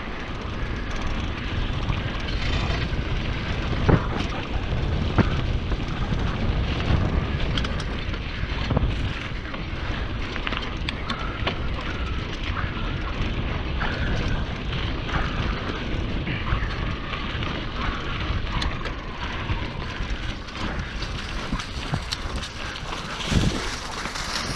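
Mountain bike being ridden on a rough trail: wind buffeting the action camera's microphone and a steady tyre rumble, with scattered knocks and rattles from bumps, the sharpest about four, five and seven seconds in.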